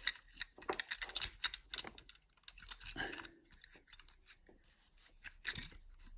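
Small metallic clicks and scrapes of a homemade wire pick being wiggled out of a Squire 660 lever padlock where it has got stuck, with a louder scrape about five and a half seconds in.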